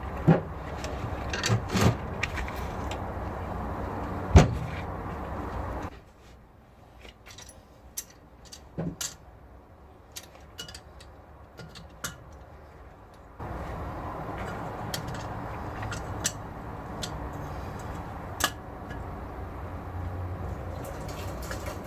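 Metal clinks and knocks of a valve spring compressor being banged on and clamped over a valve on a Rover V8 aluminium cylinder head, with one sharp bang about four seconds in and scattered smaller clicks after.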